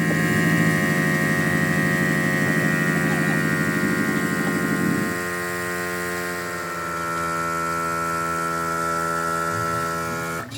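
A steady machine hum with a high whine, starting and stopping abruptly; it eases off about halfway through and the whine steps lower soon after.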